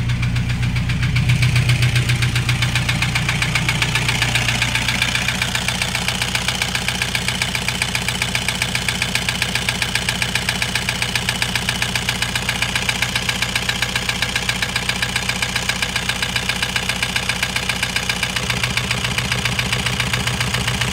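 Toyota Hiace 2KD diesel engine running at idle with a loud, steady, rhythmic knocking clatter that sounds like a boat engine. This is an abnormal noise for an engine overhauled only five months earlier, and its cause has not yet been traced.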